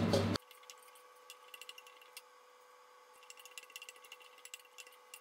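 Chili flakes roasting in a thin film of oil in a stainless steel wok as they are stirred: faint, scattered crackles that grow thicker from about three seconds in, over a faint steady hum. A spoken word cuts off just after the start.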